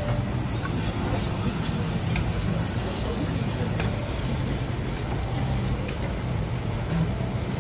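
Teppanyaki iron griddle with faint sizzling over a steady low hum, with a few light clicks.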